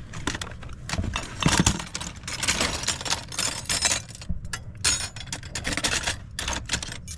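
Small metal kitchenware and cutlery clinking and rattling as a hand rummages through them in a cardboard box, with irregular knocks and rustling throughout.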